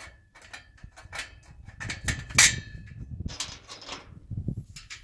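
Aluminium rails and a steel bolt clinking and knocking as the bolt is worked through the joined square tubes: a run of irregular metallic clicks, the loudest about two and a half seconds in.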